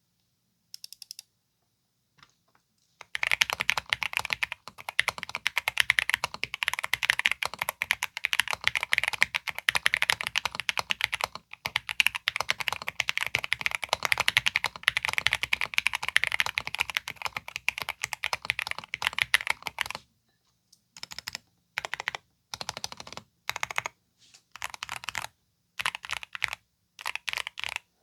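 Typing on a Zuoya GMK67 mechanical keyboard with Akko Jelly Blue tactile switches and ABS keycaps: a fast, continuous run of key clacks, then short bursts of keystrokes with pauses between them in the last few seconds.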